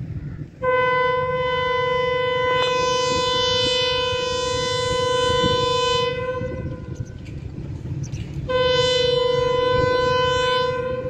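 Pakistan Railways diesel locomotive's horn sounding for departure: one long steady blast of about six seconds, then a second blast starting about two seconds later, over a low rumble.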